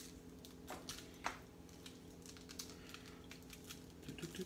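Hand pressing and rubbing salt and pepper into raw short rib beef in a tray: faint soft squishes and a few light taps, the sharpest about a second in, over a steady low hum.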